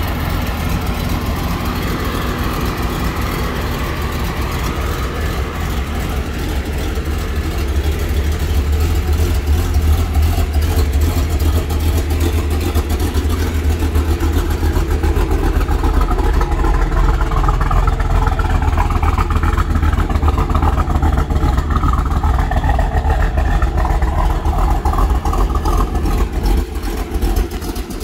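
Heavily modified, 1000-horsepower 2012 Cadillac CTS-V's supercharged 6.2-litre V8 idling steadily with a low rumble. It grows louder about a third of the way in and eases slightly near the end.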